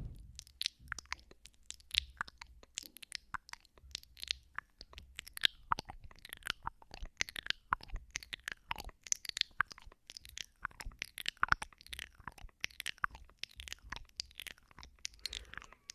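ASMR mouth sounds close to a binaural microphone: ear-nibbling and kissing, a continuous run of wet clicks, smacks and sucking sounds, several a second without a pause.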